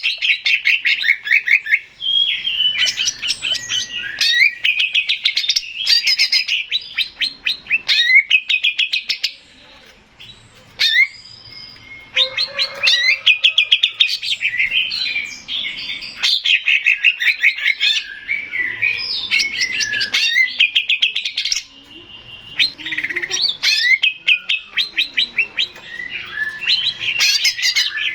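Male green leafbird (cucak ijo) singing a rapid, varied song of chattering trills and whistled phrases, with a short break about ten seconds in before the song resumes.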